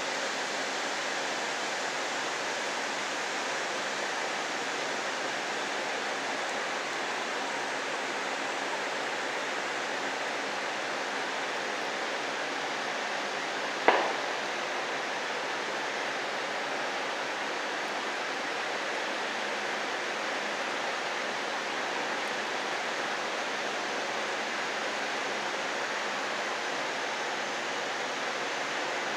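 Steady rain falling, an even hiss throughout, with one sharp click about halfway through.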